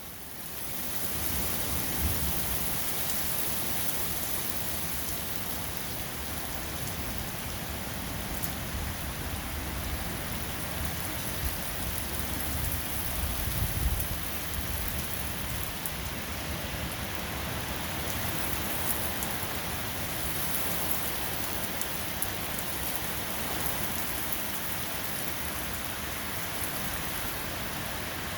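Steady rain falling, an even hiss of drops, with a low rumble about fourteen seconds in.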